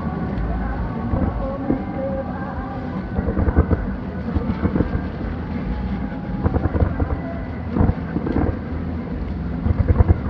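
Distant fireworks finale: a continuous low rumble of shell bursts with rapid crackling cracks, thickening in flurries around three to four seconds in, again near seven and eight seconds, and near the end.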